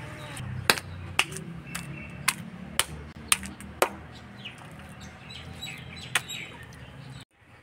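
Wooden mallet pounding chicken meat on a stone slab to beat it into a paste for rista: sharp knocks about twice a second, a pause, then one more knock near the end.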